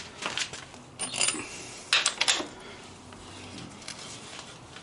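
Socket and ratchet clinking on a motorcycle's rear axle nut as it is tightened after a chain adjustment: a few sharp, irregular metallic clinks, loudest about one and two seconds in.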